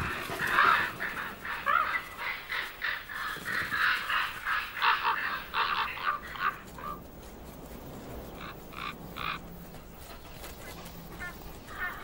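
Common ravens calling in a flurry of harsh, overlapping croaks, which thin out after about seven seconds to a few scattered calls.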